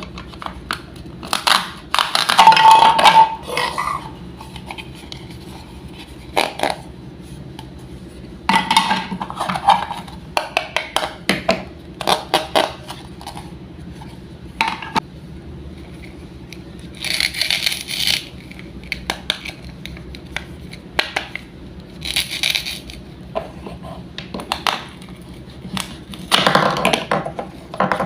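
Wooden toy food being cut with a wooden toy knife: bursts of hard clicks, taps and knocks come every few seconds as pieces are cut apart and set down, with a few longer scraping stretches.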